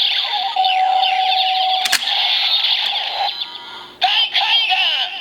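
DX Ghost Driver toy belt playing its Edison Damashii finisher sound effect: an electronic buzz with a steady held tone and a sharp click about two seconds in. After a short dip near four seconds comes a warbling synthesized chant-like voice.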